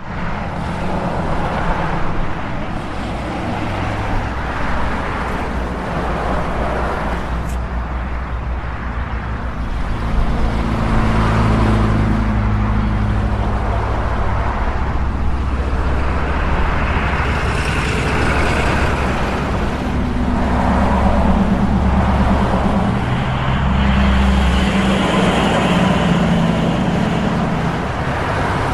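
Road traffic: a continuous rumble of cars and other motor vehicles driving along a road, with several swells as vehicles pass close by.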